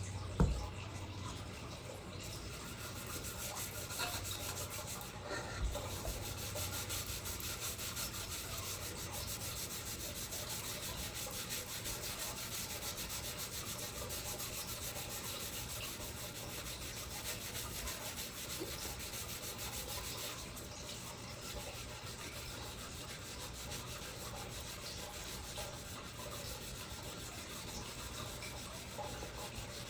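Fine 0000 steel wool scrubbed steadily over a copper fire extinguisher's body to lift staining and pitting, a continuous scratchy rubbing. A short knock about half a second in.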